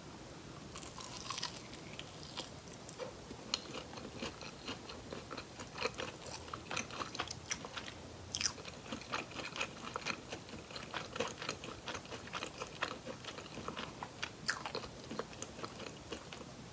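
Close-miked eating sounds: biting into and chewing crispy fried chicken drumsticks, with rapid crackles of the crunchy batter from about a second in until just before the end.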